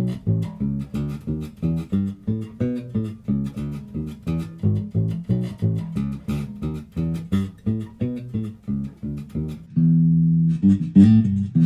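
Ibanez SR5FMDX Premium five-string electric bass played solo: a steady run of plucked notes, about three a second. About ten seconds in, one note is held for about a second before the plucked line resumes.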